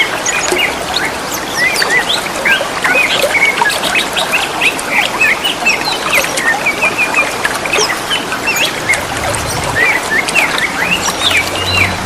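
Green leafbirds (cucak ijo) calling back and forth in a dense run of quick, overlapping chirps and whistled notes, over the steady hiss of trickling water.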